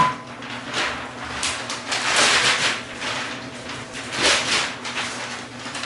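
Fanfold printer paper and the plastic cover of an HP 2564 line printer being handled: a series of irregular rustling, scraping swells, the loudest about two seconds in and again just past four seconds.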